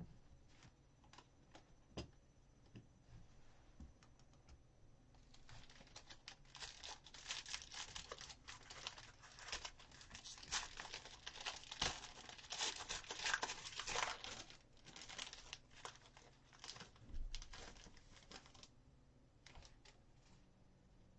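A foil trading-card pack being torn open and crinkled: a few light clicks, then a dense run of crackling and tearing from about five seconds in until near the end.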